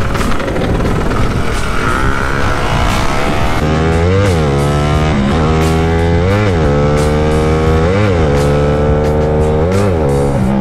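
Motorcycle riding noise with wind on the microphone, joined about two seconds in by backing music: held notes whose pitch bends down and back every second or two over a steady beat.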